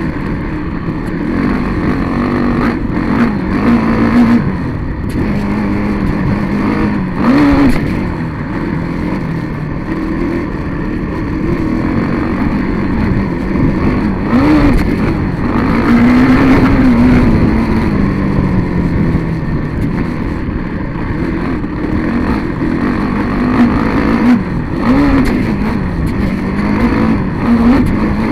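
Small vehicle engine heard from an onboard camera, running continuously with a wavering pitch and rising in several short revs, over steady wind and rattle noise with a few knocks.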